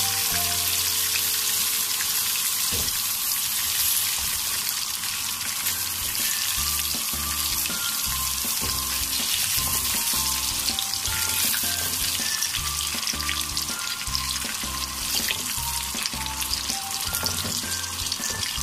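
Hot oil sizzling steadily in a wok where chicken pieces have been deep-frying. Background music with short melodic notes and a low beat plays along.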